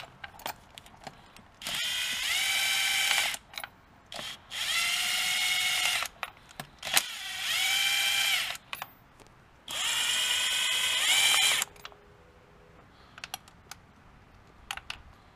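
Kobalt brushless cordless drill spinning spark plugs out with an extension and spark plug socket. It gives four bursts of motor whine, each rising quickly in pitch and then holding for about a second and a half, with light metallic clicks of socket and tools in between.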